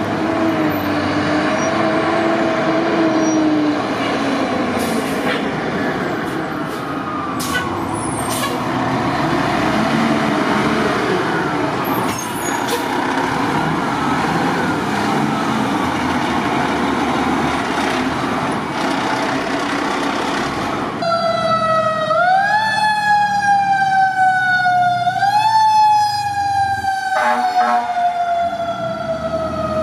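Fire trucks responding with sirens: first a ladder truck passes close with heavy engine and traffic noise and a fainter wavering siren, then a pumper's siren wails, its pitch rising quickly and falling slowly, several times over.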